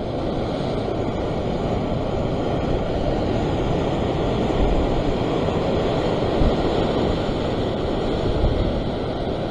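Sea surf washing and foaming against a rock ledge, with wind buffeting the microphone: a steady rushing noise with no distinct breaks.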